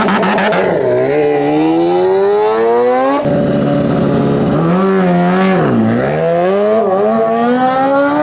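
A drag-racing vehicle's engine accelerating hard, its pitch climbing steadily. About three seconds in the tone breaks off abruptly, and near six seconds it dips before climbing again, the pattern of a hard launch and gear changes under full throttle.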